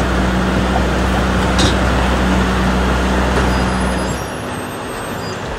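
A large vehicle's engine running with a steady low hum amid street traffic noise; the engine hum stops about four seconds in, leaving the traffic noise.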